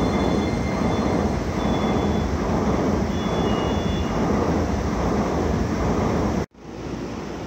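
JR East E233/E231-series electric commuter train running past the platform: steady wheel and motor running noise with faint high whines from the Hitachi IGBT inverter. The sound cuts off abruptly near the end and comes back quieter.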